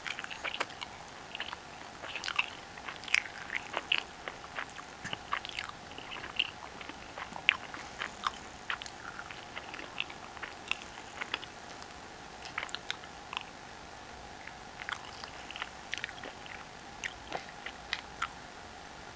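A toddler biting and chewing cooked corn on the cob, gnawing the kernels off the cob: irregular small crunches, smacks and mouth clicks.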